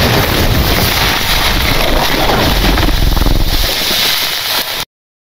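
Loud rushing, rumbling whoosh of a logo-reveal sound effect. It cuts off abruptly near the end.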